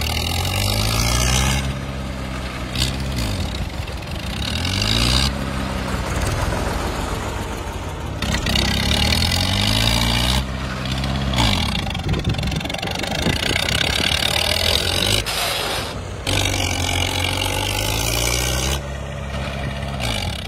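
Old diesel tractor engines revving hard, the pitch climbing and dropping again and again as the tractor is driven.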